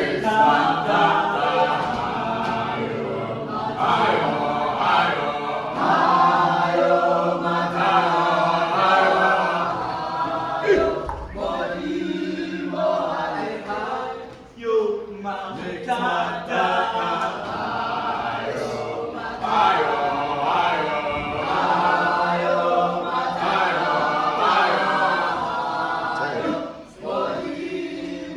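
A choir of many voices singing together unaccompanied, in long sustained phrases.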